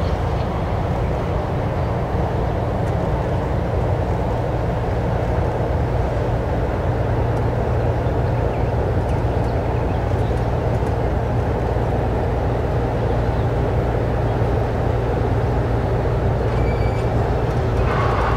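VL10u electric locomotive hauling a freight train as it approaches: a steady low rumble of the locomotive and wagons rolling on the rails, with a continuous low hum.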